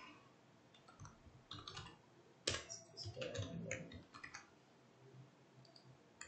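Computer keyboard typing: a quiet string of key clicks, thickest from about two and a half to four seconds in.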